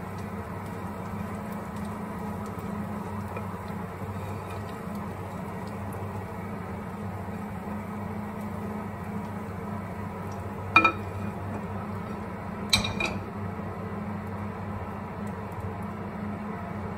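Two sharp metallic clinks about eleven and thirteen seconds in, as a metal pan is knocked against the rim of an aluminium frying pan while it is tipped out over it, over a steady low hum.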